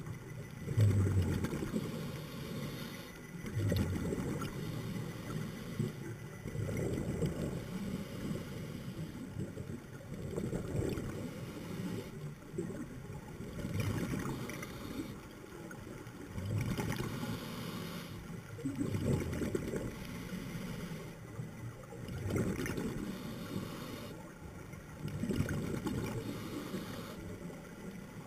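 Scuba diver's exhaled breath bubbling out of the regulator underwater, a low gurgling rumble that comes in surges every two to three seconds with quieter in-breaths between.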